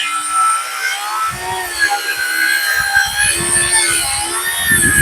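Sawmill running through a cut in a log, a steady machine sound with a wavering whine.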